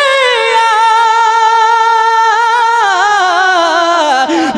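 A young man's solo voice singing a naat unaccompanied, holding one long high note on the end of a line, then sliding down through a run of ornamented turns near the end.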